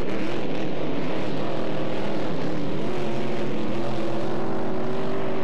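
Engines of several KRR flat-bottom racing boats running at speed together, a steady drone of overlapping tones that drift slightly in pitch.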